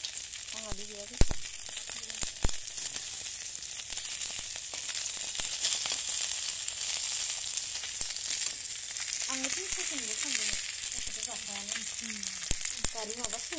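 Food sizzling steadily as it fries in hot oil in a steel wok, with a few sharp clicks of a metal spatula against the pan, the loudest about a second in.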